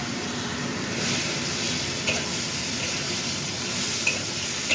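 Snow peas, carrot strips and fish balls sizzling and steaming in a hot wok with a little water in it: a steady hiss that grows stronger about a second in.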